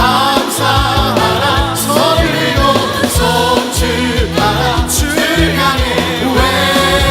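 Contemporary Christian worship band music with singing voices, over a bass line and a steady drum beat with cymbal crashes.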